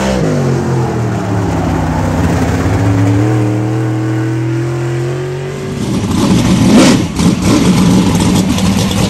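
Dirt-track modified race car's V8 engine running on the track. Its pitch drops as it comes off throttle, then climbs as it accelerates. From about six seconds in, a harsher, choppier engine revving takes over.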